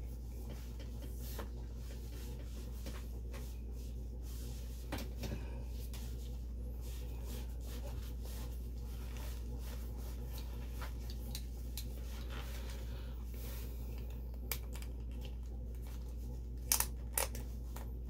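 Ratchet belt being handled and threaded through trouser loops: faint rubbing and fumbling over a steady low hum, with a few sharp clicks near the end as the buckle is fastened.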